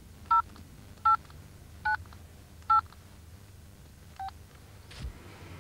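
Keys pressed on an early handheld mobile phone, each giving a short two-tone dialling beep: four evenly spaced beeps under a second apart, a fainter fifth one about four seconds in, then a click near the end.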